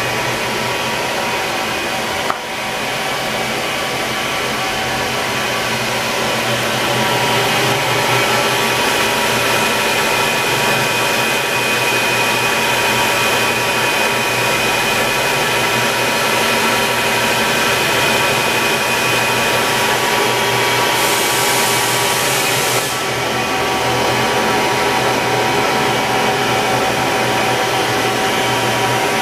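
Fadal VMC 3016HT CNC vertical machining center running under power: a steady motor whir with several whining tones. There is a short click a couple of seconds in and a brief high hiss a little past two-thirds of the way through.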